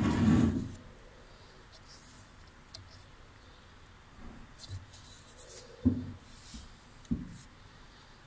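Handling noise from a removed turbocharger: soft rubbing and a few sharp metal knocks as a gloved hand works inside the compressor inlet, after a louder bump at the start.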